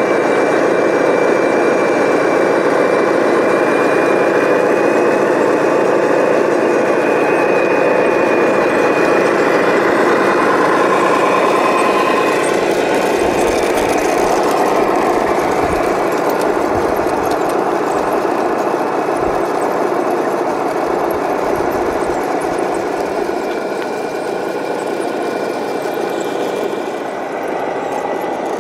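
Scale radio-controlled heavy trucks driving slowly: a steady engine-like drone with a thin high motor whine on top, and low rumbling gusts midway as the wheels pass close by.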